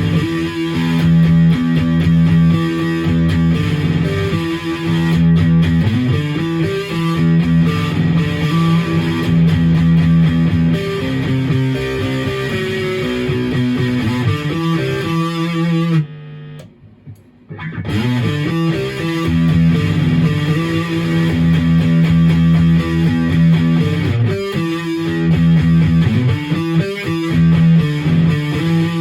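Maverick Chaos 2 HT electric guitar played through a Brown Creature distortion pedal: distorted riffs and chords, with a break of about two seconds a little past halfway before the playing resumes.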